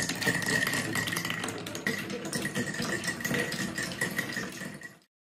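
Several marbles rolling along the wooden rails of a Quadrilla marble run, a steady rolling hum with many small clicks and taps as they drop and knock against the pieces. The sound cuts off suddenly about five seconds in.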